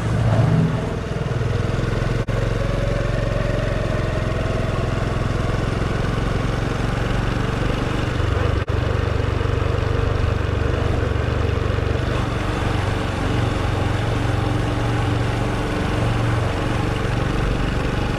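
Honda Super Cub's single-cylinder four-stroke engine running steadily, its pitch rising over the first few seconds.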